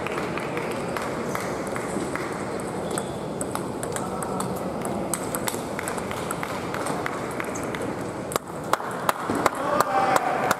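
Table tennis ball clicking off paddles and the table during a rally, over the steady murmur of a busy sports hall. A few louder sharp knocks come near the end.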